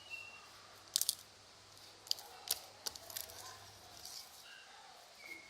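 Sticky homemade slime being stirred and pulled in a container, giving a few sharp sticky clicks and squelches.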